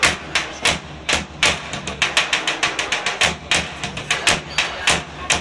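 Large double-headed Pontic drum (daouli) beaten with a stick in a quick, uneven dance rhythm of several strokes a second, with a faint steady tone underneath.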